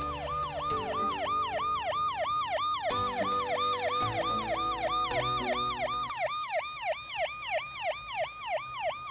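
Emergency-vehicle siren cycling fast, about three falling sweeps a second, each dropping from high to low pitch. Soft background music plays underneath and fades out about two-thirds of the way through.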